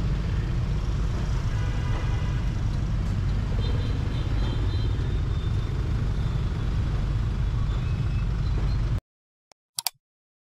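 Steady road traffic noise on a city street, a continuous rumble of passing vehicles. It cuts off abruptly about nine seconds in, and a brief ding follows just before the end.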